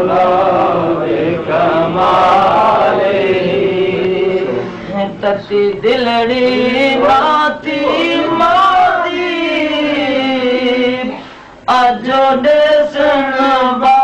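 A man's voice chanting a Punjabi Sufi devotional kalam in long, drawn-out, wavering notes, breaking off briefly near the end before going on.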